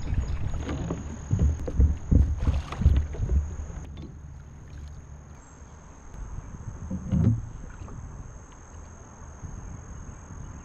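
Knocks and thumps on a fishing kayak as a netted bass is brought aboard and the angler handles the net and gear. They are busiest in the first four seconds, with another short cluster about seven seconds in.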